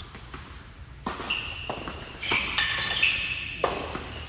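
Tennis rally on an indoor hard court: racket hits and ball bounces as sharp knocks, three of them spread through the few seconds, with high-pitched squeaking in between.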